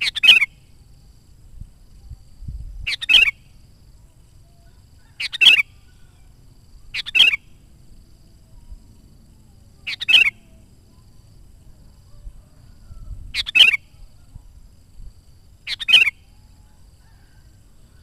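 Sooty-headed bulbul calling: seven short calls, each well under a second, spaced two to three seconds apart.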